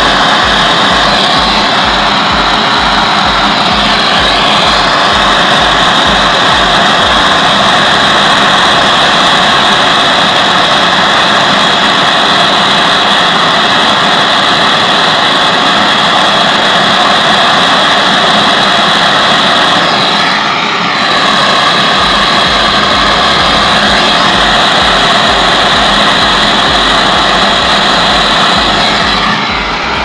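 Gas brazing torch burning with a steady loud rushing flame as it heats the copper joint of a refrigerator's filter-drier for brazing, with a low pulsing flutter underneath at times. The flame is taken away near the end.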